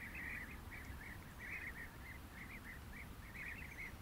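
A steady chorus of faint, short animal calls, several each second, high-pitched and close together.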